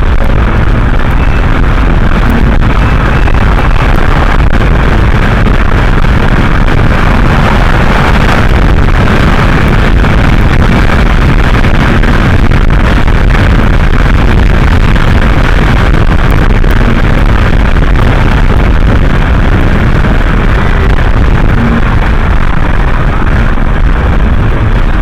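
Loud, steady road and wind noise inside the cabin of an Infiniti G37 cruising at highway speed.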